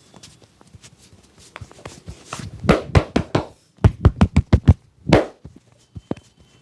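A barber's hands striking in a percussive massage. Light scattered taps give way to a few loud slaps, then a quick run of about seven slaps in under a second, and one last slap near the end.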